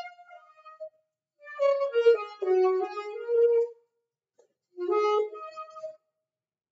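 Alto saxophone played solo: three short phrases of single notes, separated by brief rests, the last phrase ending about six seconds in.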